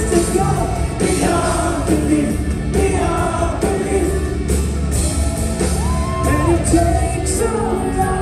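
Live Christian rock band playing loud amplified music, a male lead vocalist singing over electric guitars, keyboards and drums.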